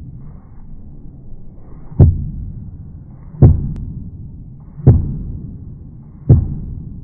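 Knife slicing down through a mushroom and striking a plastic cutting board, the sound slowed down with the slow-motion footage: four deep thuds about a second and a half apart, each with a short swell of the blade cutting just before and a fading tail after.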